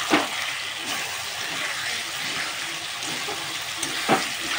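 Chicken pieces and freshly added tomato frying in oil in a black kadai: a steady sizzle, with two short, louder sudden sounds, one just after the start and one about four seconds in.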